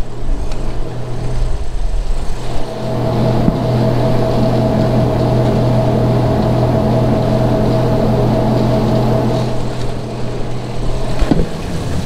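Feed truck engine running and driving its hydraulic unloading augers, a steady hum as ground feed is augered out of the truck box. A steady whine joins in about three seconds in and drops away near the end, and there is a single knock shortly before the end.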